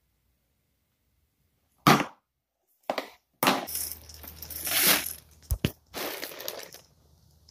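Silence at first, then a sudden knock and a run of rustling and scraping from a phone being handled right against its microphone, with two quick clicks about five and a half seconds in.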